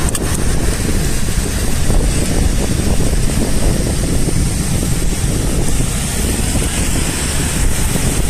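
Steady wind noise rushing over the microphone of a camera riding along on a bicycle, with a heavy low rumble.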